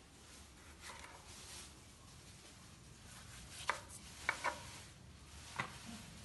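Kitchen knife cutting vegetables on a wooden chopping board: a couple of soft cuts about a second in, then four sharp, irregular knocks of the blade on the board in the second half.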